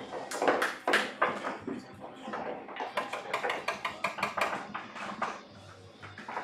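Pool balls knocking together, a rapid run of sharp clacks densest about three to five seconds in, as they are gathered from the pool table's ball-collection tray after the frame.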